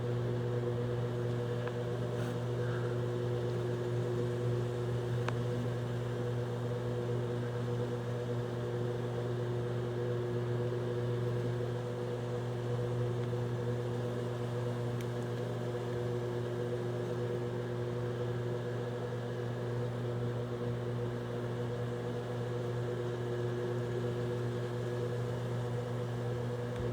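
Microwave oven running with a steady hum as it cooks.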